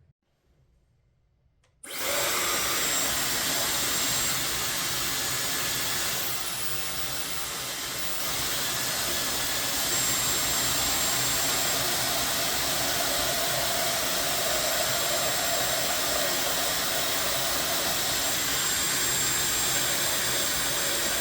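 A high-speed hair dryer switches on about two seconds in and runs with a steady rushing blow of air. Its level dips slightly for a couple of seconds in the middle, with a faint high whine, then holds steady again.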